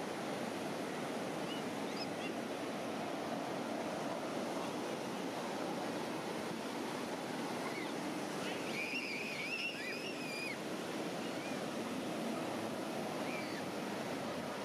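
Steady wash of ocean surf on the beach, with wind on the microphone. About halfway through, a high warbling whistle wavers for roughly two seconds.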